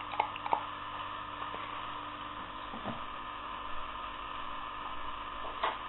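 Steady background hum and hiss, with a few faint clicks and taps here and there.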